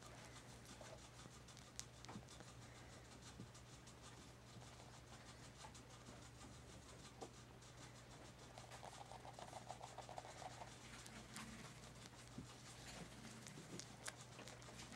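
Near silence: room tone with a steady low hum and faint scattered clicks and rustles.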